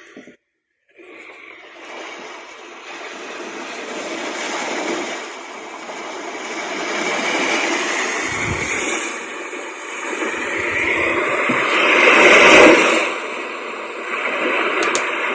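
A retro-style Bluetooth alarm clock's built-in speaker plays its alarm tone. The tone is a rushing, hiss-like noise that starts about a second in and swells gradually louder in waves.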